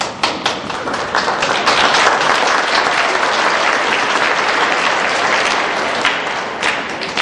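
Audience applauding. Clapping breaks out suddenly, swells to a full round within about two seconds, then thins to scattered claps near the end.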